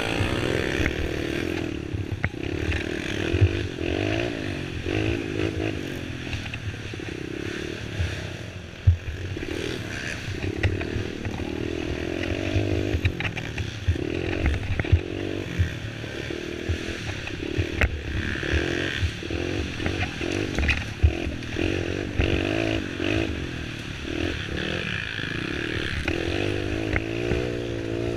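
Youth racing quad's (ATV's) engine revving up and down without pause as it is ridden hard over a rough trail, with sharp knocks and clatter from the machine hitting bumps. Near the end the engine holds steadier, higher revs.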